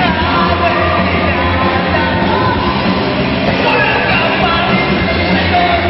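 A live rock band playing: electric guitars and bass under a man singing into a microphone through the PA.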